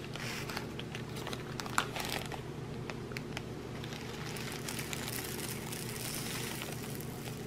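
Plastic zip-lock bag crinkling as black round diamond-painting drills are poured from it into a plastic tray, the small drills pattering and ticking as they land, with one sharper click about two seconds in.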